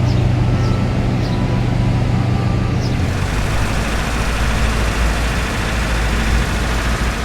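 Steady low rumble of a running vehicle, its deep hum shifting lower about three seconds in, with faint high chirps over it early on.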